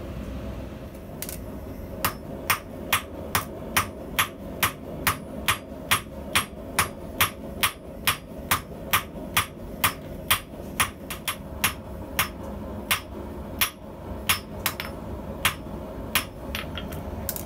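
Hand hammer forging an orange-hot H13 steel punch blank on an anvil: one lone blow, then a long, steady run of sharp strikes about two a second, starting about two seconds in and stopping near the end.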